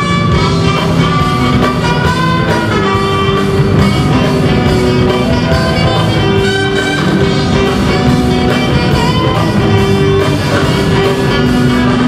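Live jazz fusion band playing: a drum kit keeping a steady beat under electric guitar, with saxophones and trumpet playing held melody notes.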